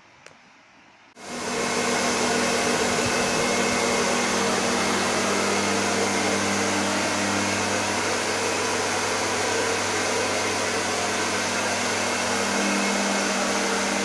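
Singer hair dryer switched on about a second in and running steadily: a loud rush of air over a low motor hum.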